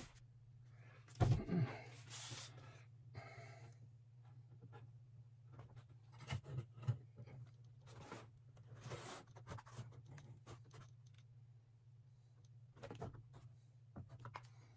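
Scattered rustles, scrapes and light knocks of hands fitting a model retaining wall along a slot car track, over a steady low hum. The loudest rustle comes a little over a second in.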